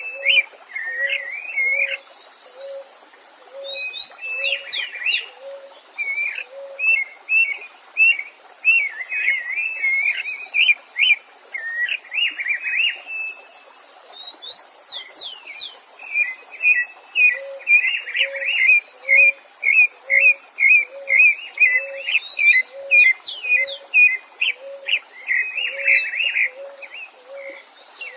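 Several songbirds singing at once: rapid high chirps and trills, a few quick rising whistles, and a low note repeated about twice a second, over a faint hiss of a running stream.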